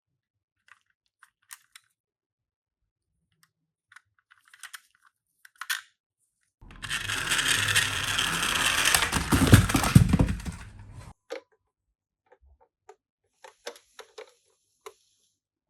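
Toy minicars being handled, with light clicks and taps. About six and a half seconds in comes roughly four seconds of loud, rough scraping and rattling that cuts off suddenly, followed by more scattered clicks.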